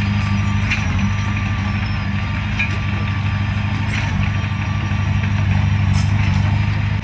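Bulldozer's diesel engine running steadily with a low, even hum, with a few short knocks and clanks from the machine.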